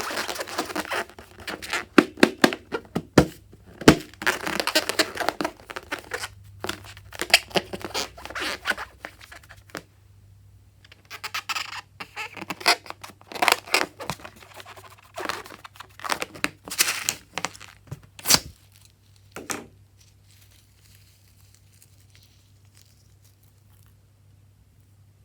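Crinkling, tearing and snipping in irregular crackly bursts, as a filled balloon is cut open and handled for slime-making. The sounds die away to a faint rustle for the last few seconds.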